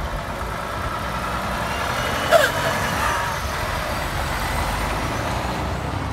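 Volvo FH heavy truck with a loaded low-loader trailer driving past, its diesel engine and tyres running steadily. A short sharp noise a little over two seconds in is the loudest moment.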